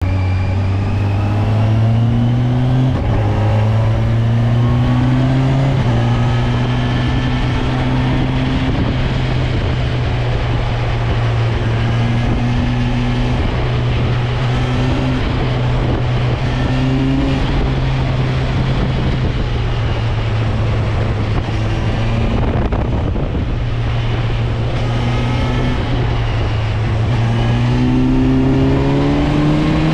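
Kawasaki Versys 1000 SE's inline-four engine heard on board while riding, its pitch rising under throttle and dropping back at each gear change and roll-off. A steady rush of wind and road noise runs under it.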